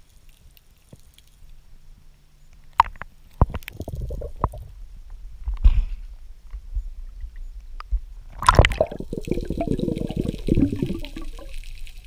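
Sea water sloshing and gurgling around an action camera at the surface, with scattered knocks, then a louder splash about eight and a half seconds in followed by a few seconds of bubbling.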